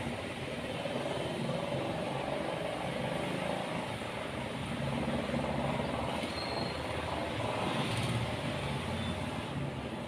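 Steady mechanical background hum, engine- or motor-like. Over it are a couple of brief faint squeaks from a whiteboard marker being drawn across the board, about six and nine seconds in.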